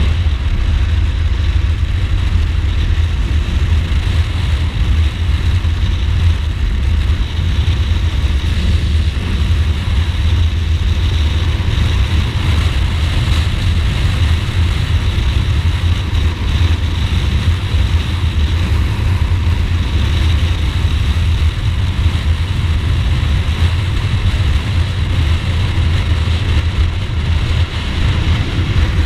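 Ducati Multistrada motorcycle under way at a steady pace: the engine runs continuously under a heavy, even rush of wind and road noise on the onboard microphone.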